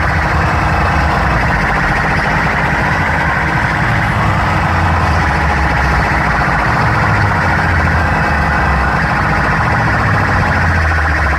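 Loud DJ music with a heavy bass line stepping between low notes under a dense, steady mid-range.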